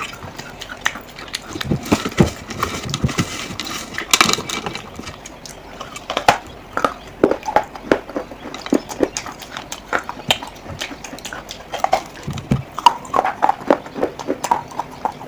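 Irregular sharp clicks and knocks of fired clay pottery, coming in quick uneven runs with short gaps.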